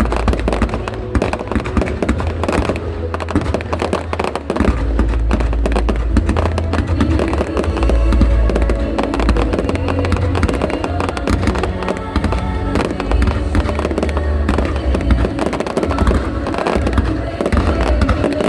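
Fireworks bursting and crackling in quick succession, mixed with loud music with a heavy bass.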